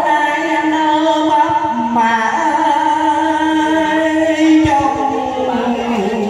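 A man singing a Vietnamese duet song in long held notes over instrumental accompaniment.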